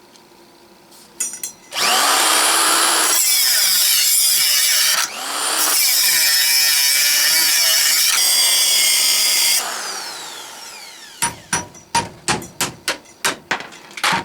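Grinder with an abrasive wheel cutting through a hardened steel drill-bit shank. It spins up about two seconds in, stops briefly and spins up again, then is switched off and winds down. It is followed by a quick run of about ten sharp taps.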